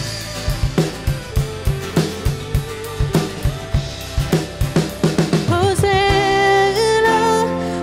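Live worship band playing: a drum kit keeps a steady beat with bass drum and snare under electric and acoustic guitars and keyboard. About five and a half seconds in, a singing voice comes in over the band.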